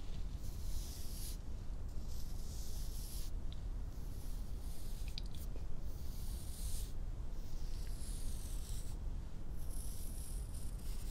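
Hands rubbing close to the microphone in about six slow swishing strokes, each lasting roughly a second, with a couple of faint clicks in the middle.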